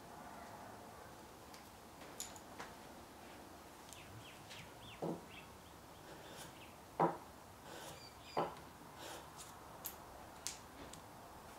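Three short strokes of a small block plane trimming the end of a hoop pine kumiko strip on a wooden trimming jig, about two seconds and then a second and a half apart, with a few lighter taps and faint bird chirps between them.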